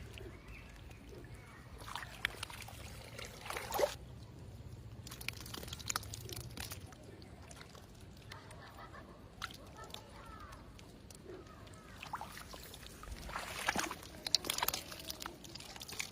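Shallow water sloshing and splashing while fishing, in two spells of splashes: a couple of seconds in and again near the end.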